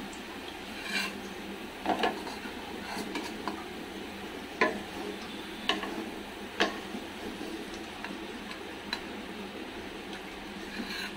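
Wooden spatula scraping and knocking against a steel kadai, with several sharp knocks, the loudest about halfway, as fried onion slices are scooped out of the oil. Under it the oil keeps up a steady low sizzle.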